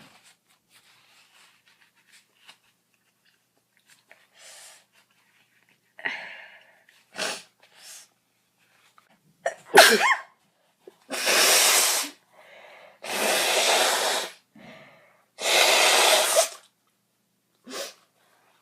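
A girl sneezing: faint breaths and sniffs at first, then a sharp, loud sneeze with a voiced cry about ten seconds in. This is followed by three long, loud, hissing bursts of about a second each.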